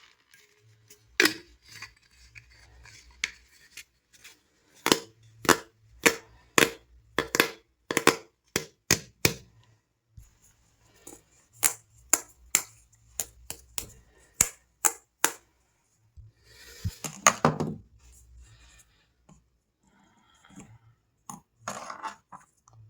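A long series of sharp clicks and taps of hard objects being handled, irregular but often about two a second, with a longer crackling rustle about 17 seconds in.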